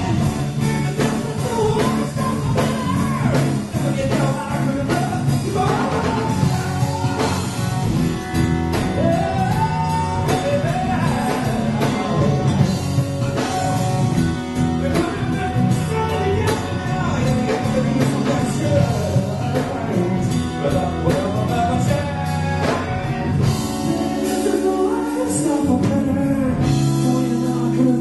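Live rock song: a male voice singing over an amplified acoustic guitar, with electric bass underneath.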